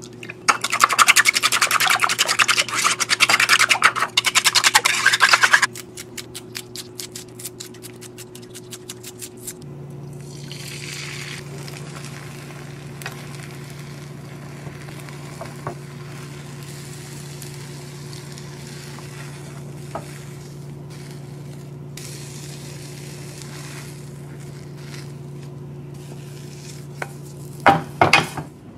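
Eggs beaten briskly with wooden chopsticks in a ceramic bowl, loud and rapid for about six seconds, then lighter strokes. From about ten seconds in, beaten egg sizzles softly in a rectangular tamagoyaki pan as it is rolled, with a few sharp knocks of the utensils against the pan near the end.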